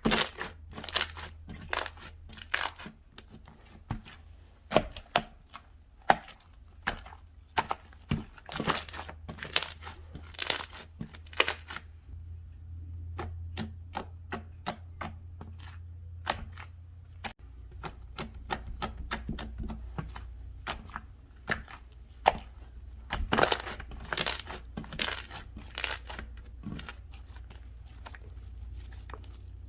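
Hands playing with slime: a run of sticky clicks and pops as it is poked, pressed and stretched. The pops thin out for a while in the middle and come thick again later.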